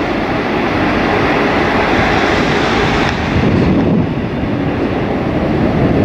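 Strong, gusty typhoon wind buffeting the microphone with a low irregular rumble, over the steady rushing jet noise of a landing Boeing 777.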